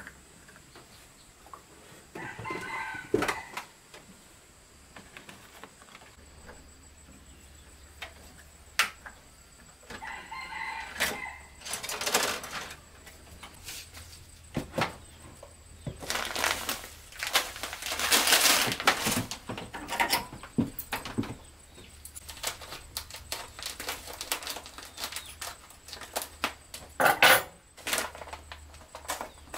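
Chickens call twice, a couple of seconds in and again about ten seconds in, over the clicks and clatter of kitchen utensils and plastic containers being handled. There is a longer rustling spell in the middle.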